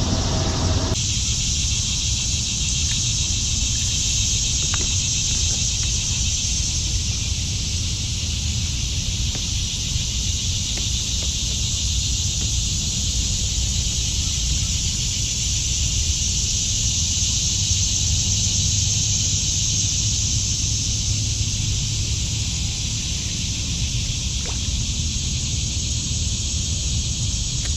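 Steady, unbroken high-pitched drone of a summer insect chorus, over a low rumble.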